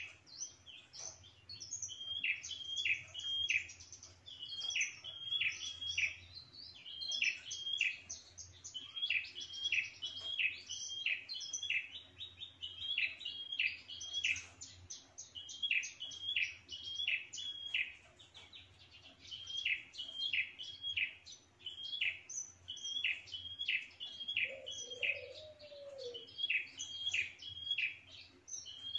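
Prenjak (prinia) singing its territorial song: quick runs of three or four sharp, high chip notes, repeated every second or two, with higher twittering between them.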